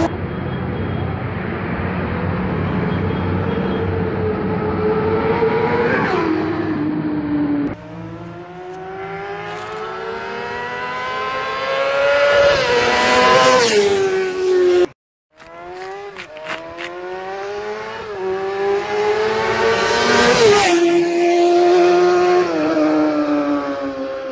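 Superbike engines revving hard as motorcycles accelerate past, each climbing in pitch and then dropping sharply as it goes by, about three times. There is a split-second break in the sound about 15 seconds in.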